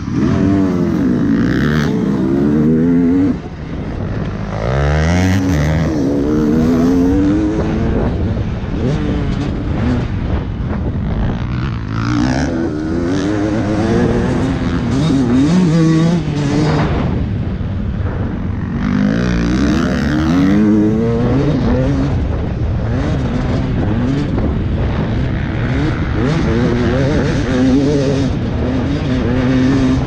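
Dirt bike engine revving hard under race riding, its pitch repeatedly climbing and dropping as the throttle is worked and the gears are changed.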